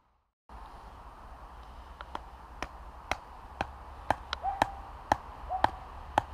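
A mallet knocking a tent peg into the ground with sharp, separate blows about two a second, starting about two seconds in. Some blows leave a short ring.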